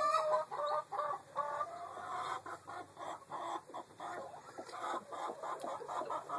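Chickens clucking, a steady run of short repeated clucks with a longer call at the start.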